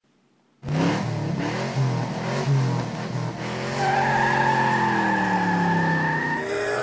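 Car engine revving, starting suddenly about half a second in, its pitch rising and falling. From about four seconds in a long high tyre squeal runs over a slowly falling engine note.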